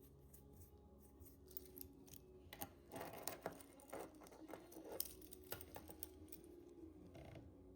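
Faint handling noises during an unboxing: light rustling and a scatter of small clicks, busiest from about three to five and a half seconds in.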